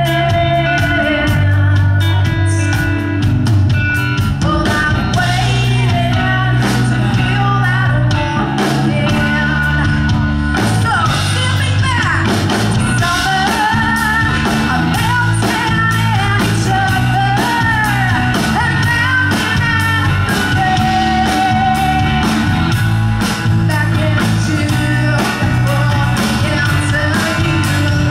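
Live band playing a rock song: a woman singing lead into a microphone over electric bass and guitar with a steady beat.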